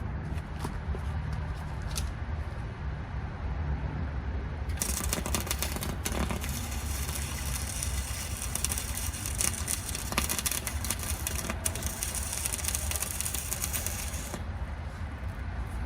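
A welding arc crackling and sizzling steadily for about ten seconds, starting about five seconds in and cutting off near the end. A steady low hum runs under it throughout.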